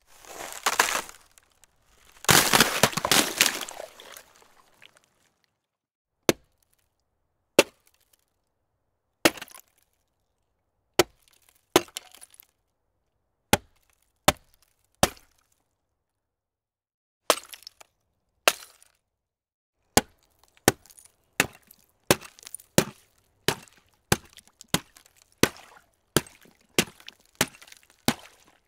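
A sequence of ice sound effects: a crackling burst of ice breaking up in the first few seconds, then single sharp hits on ice about every second and a half, which speed up to roughly two a second in the last third.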